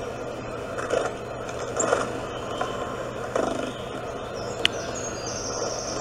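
Soundtrack of a bird video playing through a smartphone speaker: a steady rushing outdoor background with a few short sounds, a sharp click near the middle and faint high chirps near the end.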